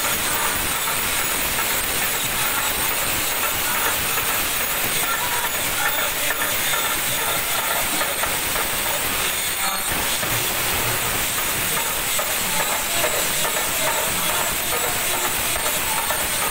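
Small and large brass hand cymbals clashed rapidly and continuously in a devotional bhajan, blending into a steady, dense metallic hiss, with voices faint beneath it.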